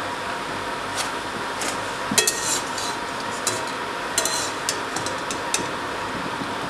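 Metal spatula clinking and scraping against a metal wok as potato fritters are turned, over a steady sizzle of frying. About ten sharp clinks come between one and five and a half seconds in, the loudest about two seconds in with a brief metallic ring.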